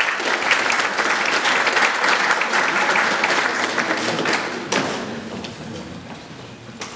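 Audience applauding, a dense patter of clapping that thins and dies down about five seconds in.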